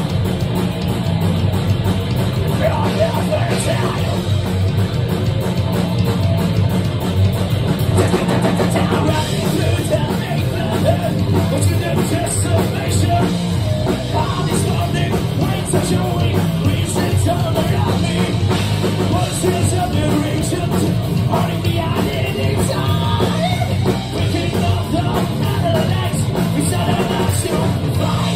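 Thrash-metal band playing live, loud and unbroken: distorted electric guitars, bass and a fast-hit drum kit, with a singer over it at times, recorded from the audience on a phone.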